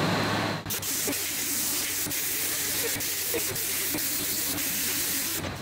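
Small pneumatic right-angle grinder with an abrasive disc sanding laser-cut stainless steel sheet: a steady hiss of air and abrasion that starts about a second in and cuts off just before the end.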